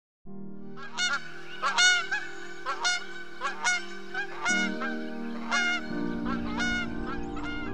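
A flock of geese honking in flight, about a dozen short honks from about a second in, the loudest near two seconds in. A steady sustained music chord plays underneath.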